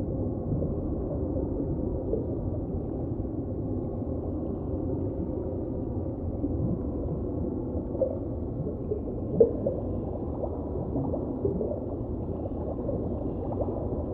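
Underwater recording: a steady low rumble of water noise with faint, scattered bubbly chirps and two brief pops, one about eight seconds in and one about a second and a half later.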